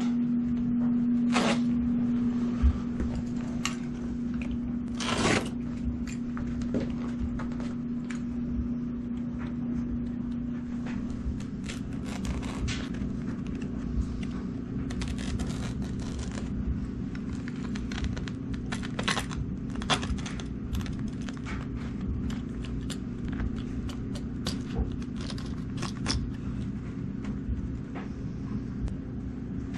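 Utility knife cutting through carpet and its backing along the wall edge: a series of short scraping, tearing strokes over a steady hum.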